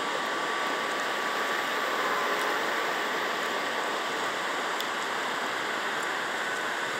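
River water rushing steadily through a dam's open gates, a continuous even wash of noise.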